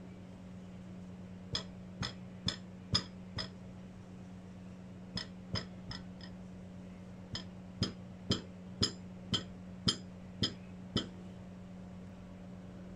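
Stainless steel milk pitcher tapped down on a towel-covered table, short sharp knocks in three runs of about two a second (five, then four, then eight), knocking the bubbles out of the frothed milk before pouring latte art.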